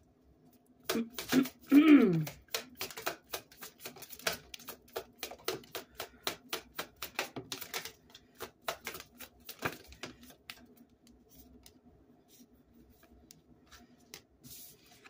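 A tarot deck being shuffled by hand: a rapid run of crisp card clicks and flicks that thins out to occasional taps after about ten seconds. About two seconds in, a short falling hum from the reader's voice.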